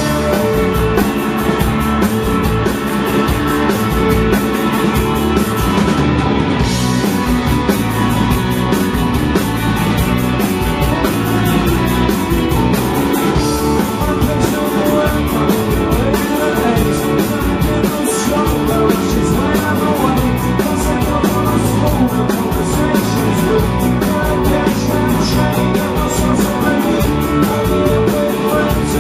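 A rock band playing live: electric guitars, bass and drum kit, loud and steady, with the cymbals keeping a fast, regular beat.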